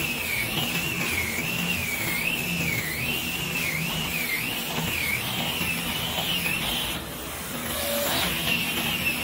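Angle grinder with a sanding disc running against pallet-wood boards, its motor whine dipping and recovering in pitch about every two-thirds of a second as it is pushed back and forth under load. The whine eases briefly about seven seconds in, then picks up again.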